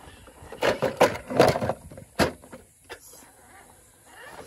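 Gritty scraping and scuffing on rock, several in a cluster about a second in, then a single sharp knock just after two seconds.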